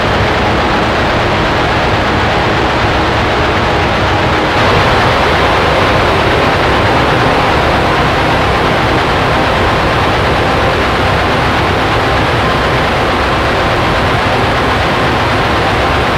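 Raw, lo-fi black metal recording: a dense, unbroken wall of heavily distorted guitars and drums, growing slightly louder and brighter about four and a half seconds in.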